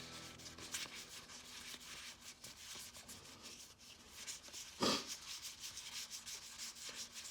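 Trading cards being flipped and slid against one another, a soft, quick rubbing and flicking. One short, louder burst comes about five seconds in.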